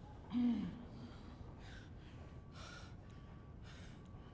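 A man acting the pain of a stab wound: a short groan with a falling pitch about half a second in, then breaths drawn about once a second.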